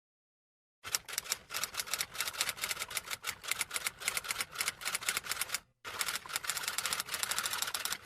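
Rapid typing clicks, many keystrokes a second, starting about a second in, with a brief pause near six seconds.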